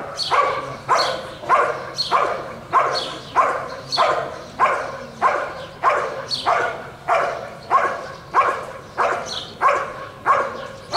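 Belgian Malinois barking at a standing, sleeved helper in IGP protection work: a steady, unbroken run of loud barks, a little under two a second.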